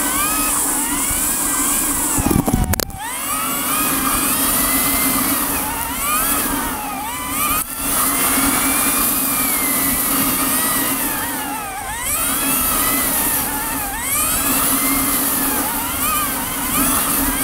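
1996 Yamaha Phazer snowmobile's two-stroke twin engine running at speed along a trail, its pitch rising and falling again and again as the throttle is worked, with wind hiss on the microphone. A brief low thump about two and a half seconds in.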